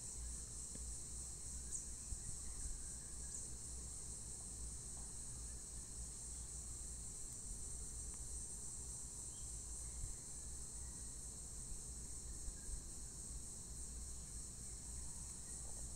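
Steady, high-pitched chirring of insects, unbroken throughout, over a faint low rumble.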